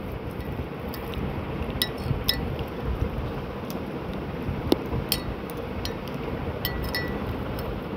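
A metal spoon clinking against a glass of milky tea: a dozen or so light, irregular clinks over steady background noise.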